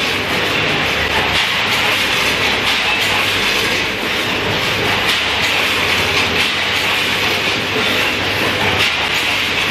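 A 24-head multihead weigher running with dry snack pieces: a steady, dense clatter of the pieces rattling across its vibrating stainless-steel feed pans and buckets.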